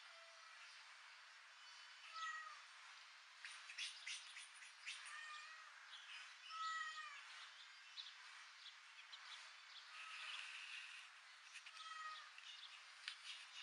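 A kitten mewing faintly: several short, high, arched mews spaced a few seconds apart, over a light hiss.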